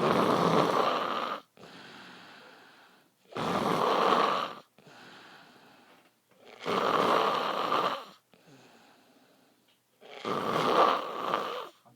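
A sleeping man snoring loudly: four long, rasping snores about three and a half seconds apart, with quieter breaths in between.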